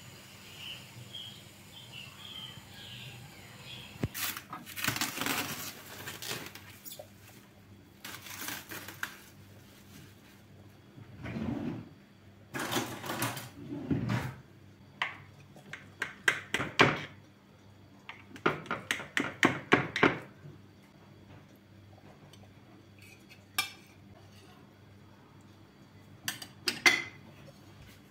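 A knife cutting a sheet cake in a glass baking dish, the blade scraping and tapping on the glass, then a metal spatula lifting slices out, with quick runs of clinks of metal on glass and china plates. A few single clinks come near the end.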